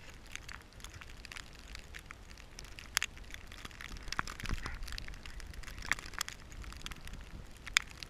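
Snow crunching and crackling as a husky moves through deep fresh snow close by, with many scattered sharp ticks and a low wind rumble that swells about halfway through.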